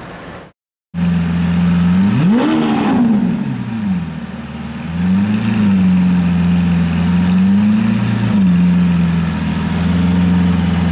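Lamborghini Aventador V12 with an aftermarket LNB exhaust idling, starting suddenly about a second in. It is blipped once sharply to a high rev and back down about two seconds in, then given two lighter revs.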